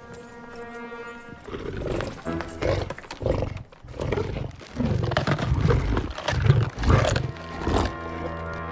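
A held musical note, then a monster's harsh growls in repeated short bursts over dramatic music: a film-soundtrack creature sound effect standing in for the animatronic alligator's attack.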